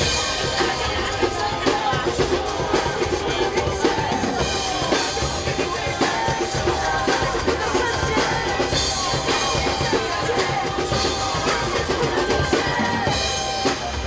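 Drum kit played live over a recorded pop backing track: a steady rock beat of bass drum, snare and cymbals, with the track's melody sounding underneath.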